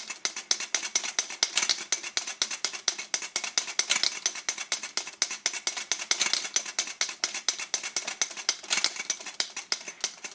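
Solari Udine Cifra 12 flip clock mechanism turned by hand, its flip cards snapping over one after another in a fast, even run of sharp clicks, several a second.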